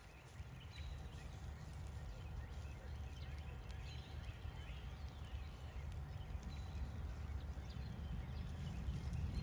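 Outdoor ambience: a low steady rumble that grows slightly louder, with faint high bird chirps scattered through it.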